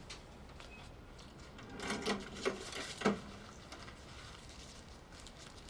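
A few short soft handling noises about two to three seconds in, over quiet room tone.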